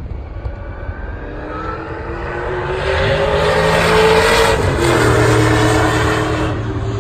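Racing saloon car's engine running hard as it approaches along the straight. The engine note rises and grows louder, passes at its loudest about four seconds in, then drops in pitch and fades as the car draws away.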